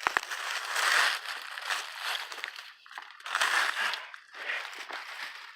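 Dry leaves and brush crunching and rustling in irregular bursts as someone scrambles over rocks, with a sharp click just after the start.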